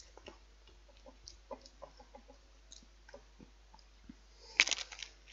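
A Pringles Rice Fusion crisp being bitten into and crunched between the teeth, a quick run of sharp crunches about four and a half seconds in. Before that there are only soft, scattered mouth clicks.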